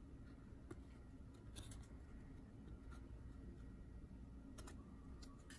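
Near silence: room hum with a few faint ticks and rubs of fingers handling and turning over a trading card.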